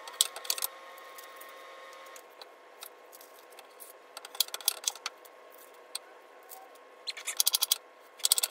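Knife chopping onion on a cutting board: several quick runs of sharp taps, the fastest near the end at about seven or eight a second, with pauses between runs.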